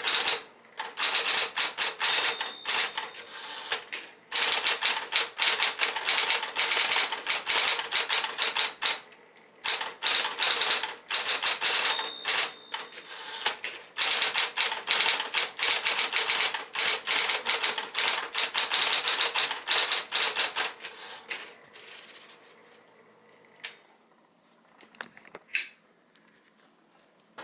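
1973 Smith-Corona Electra 120 electric typewriter typing in fast runs of key strikes with short pauses, a steady motor hum underneath. A brief ringing tone comes twice. The typing stops about three-quarters of the way through, leaving a few single clacks.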